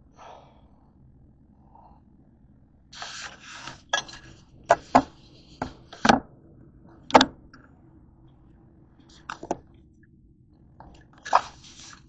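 Kitchenware being handled: a scatter of sharp knocks and clinks, with short scraping or rustling stretches about three seconds in and again near the end.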